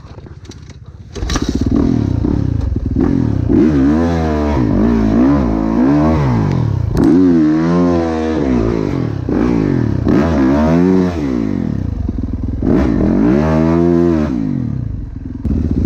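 Yamaha motocross bike's engine catching about a second in, then revved hard in several long rising-and-falling swells as the bike pulls out through deep mud.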